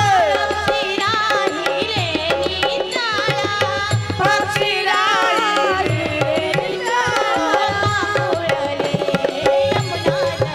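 Devotional kirtan music: a voice sings a winding melodic line over tabla accompaniment, with a steady held note underneath.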